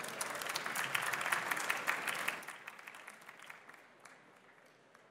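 Audience applauding at the end of a talk, dying away about three to four seconds in.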